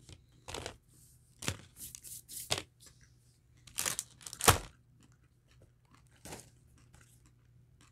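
Snack wrapper being handled, crinkling and rustling in a series of short bursts, the loudest about four and a half seconds in.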